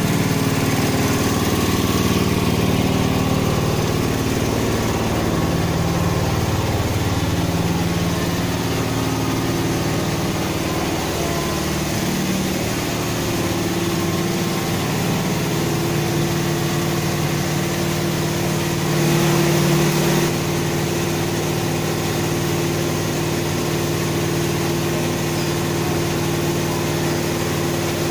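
Water tanker truck's engine idling steadily, with a short louder stretch about two-thirds of the way in.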